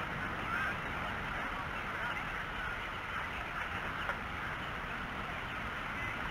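Many birds calling at once: a dense, steady chatter of short overlapping calls, over a low steady rumble.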